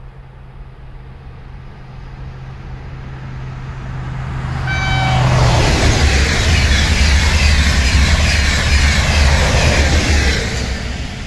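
TGV Océane double-deck high-speed train approaching and passing at speed. A growing rumble is followed about five seconds in by a short horn toot, then a loud rush of wheels and air for about five seconds that fades near the end.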